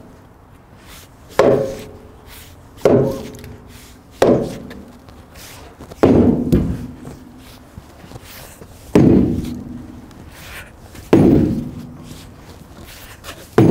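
Seven heavy blows struck against a frozen-down elm cant, each a sharp wooden thunk with a short ringing tail, coming irregularly every one and a half to three seconds. The blows are knocking loose a cant frozen to the trailer.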